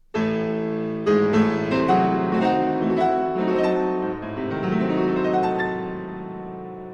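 Background piano music: a chord struck at the start, then a slow run of ringing notes that gradually fade.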